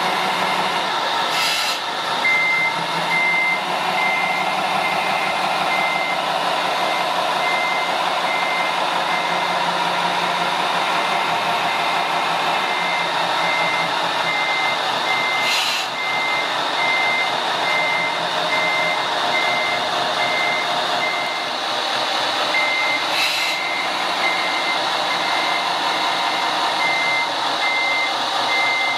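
Remote-control Mercedes-Benz Actros model truck's sound module playing a reversing beeper, about two beeps a second, over a steady engine sound as the truck backs its semi-trailer. Three short hisses, like air-brake releases, break in along the way.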